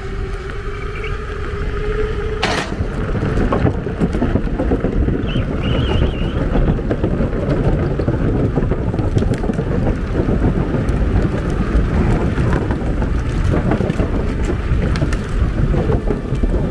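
Electric skateboard rolling at speed: a steady low rumble of wheels on pavement mixed with wind buffeting the microphone. A faint rising whine in the first couple of seconds ends in a sharp click.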